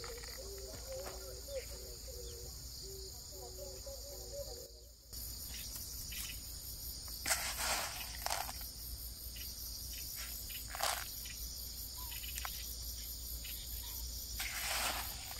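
Crickets and other insects chirping steadily in a high-pitched chorus, with a faint low repeating call in the first few seconds. A few brief rustles come from hands handling granular fertilizer in a plastic bowl.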